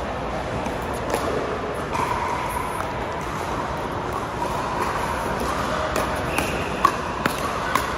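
Pickleball paddles striking a hard plastic ball in a doubles rally: sharp pops, one about a second in and three in quick succession about half a second apart near the end, as the players volley at the net. Steady echoing din of a large indoor hall under them.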